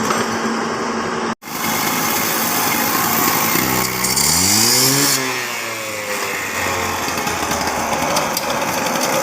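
A small engine runs with a noisy mechanical clatter. It cuts out abruptly about a second in, then revs up around four seconds in and eases back down.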